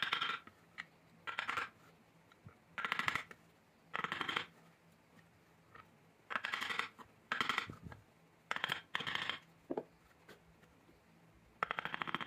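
Wooden mallet blows on a hand chisel driven into the soft core of a jackfruit-wood vase, chipping out the pith. The knocks come in short clattering bursts, irregularly, about every second or two.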